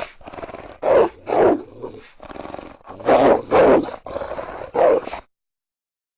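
Kitsune (Japanese fox spirit) creature sound effect: a run of about five loud animal-like cries, each sliding down in pitch, cutting off to silence about five seconds in.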